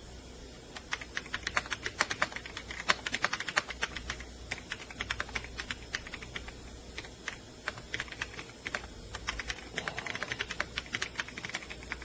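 Typing on a Logitech Alto Keys K98M wireless mechanical keyboard: quick runs of key clicks that start about a second in, with brief pauses between runs.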